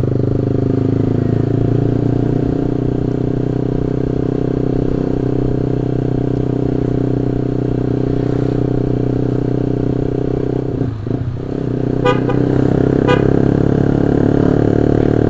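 Honda CB150R single-cylinder engine with an aftermarket titanium racing exhaust running steadily at cruising speed. The engine note dips briefly about eleven seconds in, and just after it the bike's horn gives a couple of short beeps.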